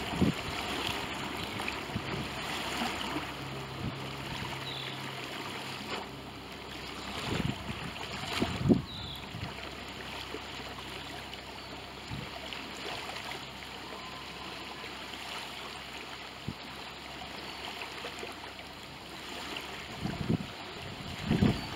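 Wind buffeting the microphone in gusts, the strongest about seven and nine seconds in and again near the end, over a faint steady low hum.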